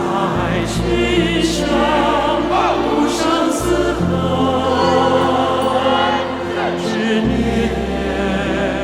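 Choral music: a choir singing long held notes with vibrato over sustained bass chords that change every few seconds.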